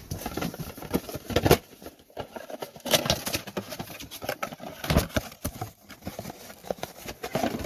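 Plastic dash trim and switch parts being handled and worked loose by hand: an irregular run of clicks, knocks and rattles, with a few louder knocks spread through it.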